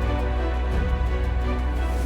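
Background music: sustained chords over a deep held bass with a faint steady beat.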